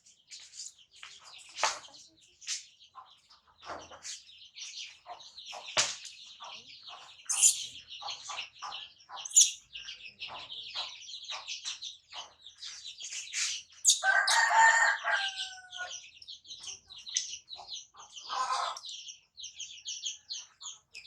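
Rapid high chirping calls, many short chirps one after another, with a louder, longer call about fourteen seconds in and a shorter loud one near eighteen seconds.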